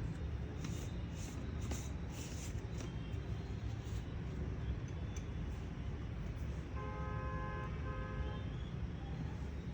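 Steady low rumble of distant traffic, with a vehicle horn sounding about seven seconds in, a held toot broken once and lasting about a second and a half.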